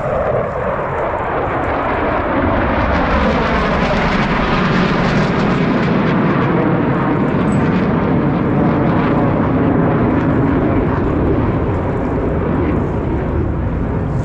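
Blue Angels F/A-18 Super Hornet jets passing overhead: a loud, steady jet roar that builds over the first couple of seconds and eases slightly near the end.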